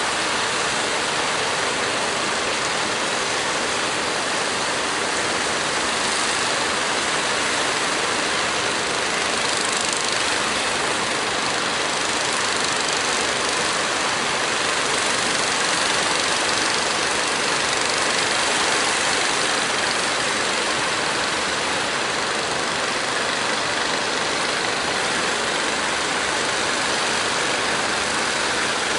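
Engines of several wooden fishing boats motoring through rough water, mixed with a steady rushing wash of waves and wind.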